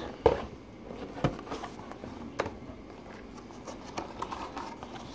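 Cardboard Lego box being handled: a few sharp knocks and taps, the loudest about a quarter second in, with faint rustling between.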